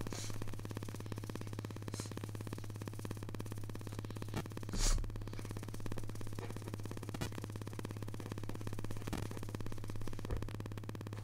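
Steady low electrical hum with a faint buzz, and a few soft, brief noises, the loudest about five seconds in.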